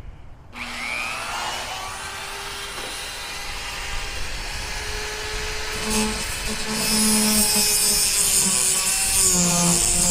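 Dremel rotary tool with a thin cutoff wheel spinning up about half a second in, then cutting into the heads of rusted screws, a high whine over grinding noise. The grinding grows louder and harsher from about seven seconds in.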